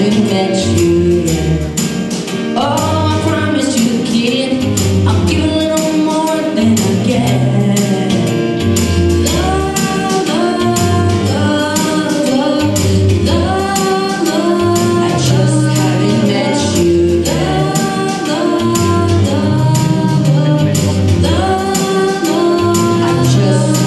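Two boys singing a pop song into microphones over music with a steady beat.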